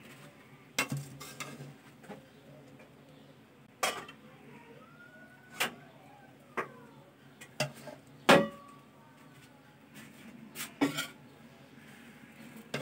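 A metal serving spoon clinking and scraping against a metal cooking pot and a plate as rice is dished out. About a dozen sharp, irregular clinks, the loudest about eight seconds in.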